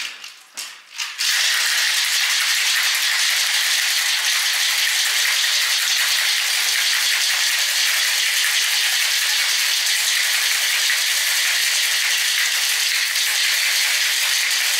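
Ice rattling inside a cocktail shaker that is shaken hard without a break: the shake with ice before the drink is strained. A few short knocks in the first second as the shaker is closed, then the rattle starts about a second in.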